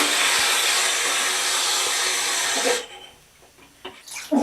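A loud, steady rushing hiss that holds for nearly three seconds and then cuts off sharply.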